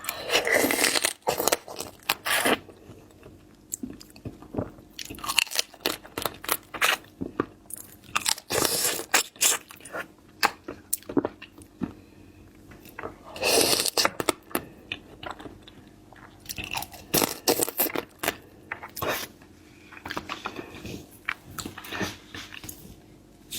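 Close-miked crunching, biting and chewing of seafood, in bursts of crisp crackles with short pauses between mouthfuls.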